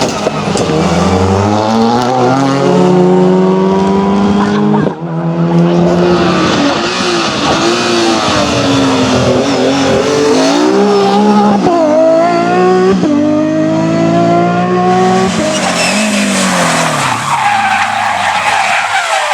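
Rally car engine revving hard, its pitch climbing and dropping again and again as it changes gear, with tyres skidding. Near the end the engine note fades and a hiss of tyre noise takes over.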